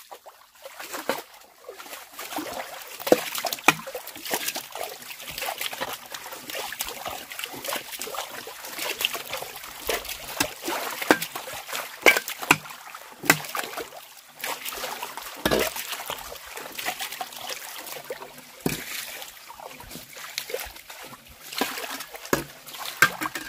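Water being scooped out with a dipper and thrown aside: irregular splashes, one after another.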